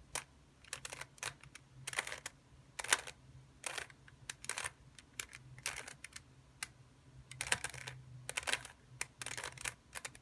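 Plastic Rubik's cube being turned by hand, its layers clicking and clacking in quick, irregular runs of sharp clicks as an OLL algorithm is performed.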